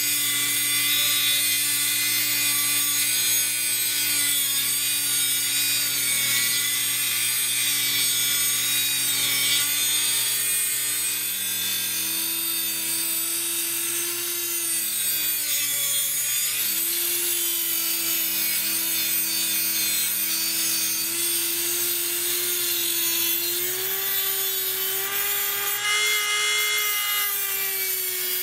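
Dremel rotary tool on a flexible shaft, with a metal cutting wheel, grinding through metal bolts to shorten them. It runs as a steady whine over a gritty scraping, and the pitch steps slowly upward over the second half.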